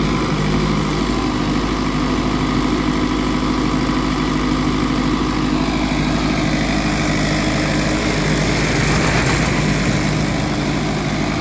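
Sonalika DI 55 tractor's diesel engine running at a steady pitch under load as it strains to pull a disc harrow, its rear tyres dug into loose soil. A rougher noise swells for a few seconds past the middle.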